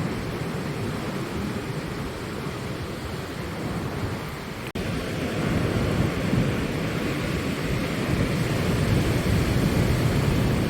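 Ocean surf with wind buffeting the microphone: a steady low rumble with a brief break about halfway through.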